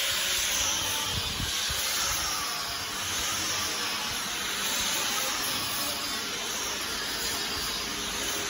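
Steady hissing noise of workshop machinery running, with a few soft low thumps a little over a second in.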